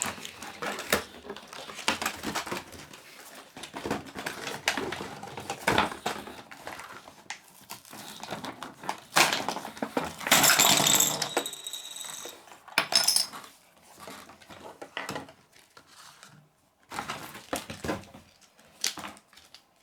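Small plastic toy accessories clicking and clattering as they are handled and set down, with a longer rustling stretch about ten seconds in.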